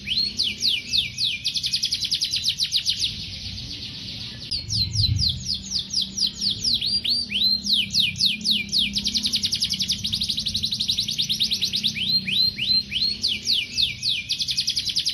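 Canary singing a long, fast song: rapid runs of repeated downward-sweeping notes, trill after trill, with a short break about three seconds in.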